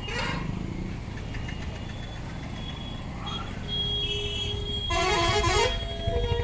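Busy road traffic, with engines running and a low rumble. A vehicle horn sounds from about four seconds in, and a louder horn honks briefly near the end.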